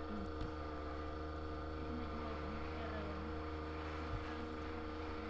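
Steady electrical mains hum made of several steady tones, with faint clicks about half a second in and about four seconds in.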